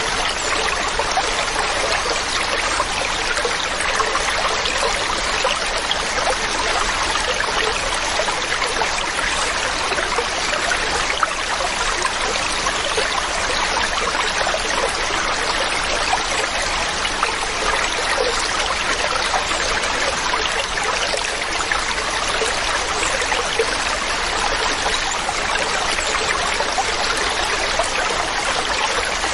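Steady rush and splash of water falling and cascading at a waterfall, with no breaks or changes.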